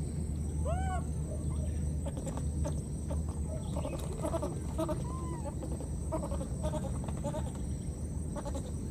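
Baby monkey crying: a short arched call with a rise and fall in pitch about a second in, and a weaker one about five seconds in, among scattered faint chirps, over a steady low rumble.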